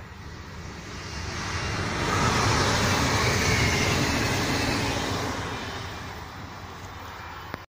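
Red regional electric multiple-unit train passing close by on the line: its running noise swells to a loud peak a couple of seconds in and fades as it moves away, then cuts off suddenly.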